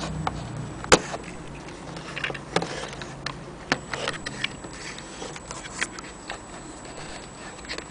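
Irregular small clicks and taps of an old folding film camera being handled, with one sharp click about a second in.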